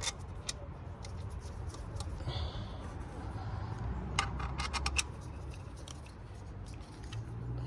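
Metal valve cover bolts clinking as they are handled and started by hand into the engine's valve cover: a few sharp clicks near the start and a quick cluster of clinks about four to five seconds in, over a low steady hum.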